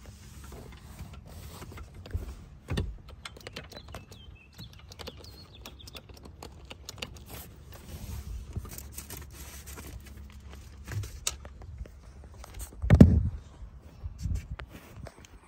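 Handling noise from work on a car seat: paper rustling, scattered small clicks and knocks, and one louder thump about 13 seconds in.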